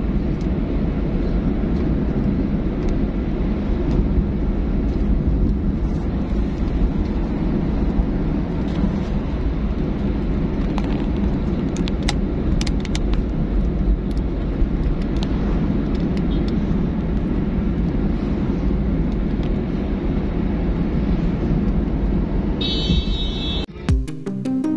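Steady engine and road noise heard inside a moving car's cabin. Near the end it cuts off suddenly and music begins.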